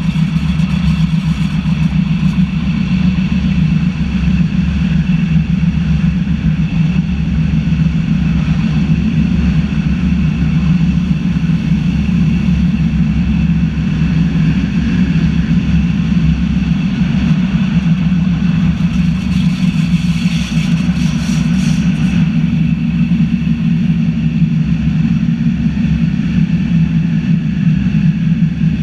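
Zentralbahn metre-gauge electric train running steadily along the track, a constant low hum and rumble. About twenty seconds in, a brief hiss lasts a couple of seconds.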